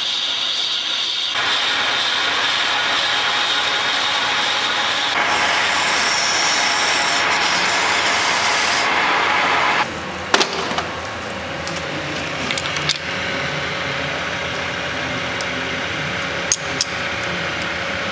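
Manual metal lathe turning a steel part for a hydraulic cylinder: a steady, high cutting noise whose character changes abruptly several times, with a few sharp metallic clinks in the second half.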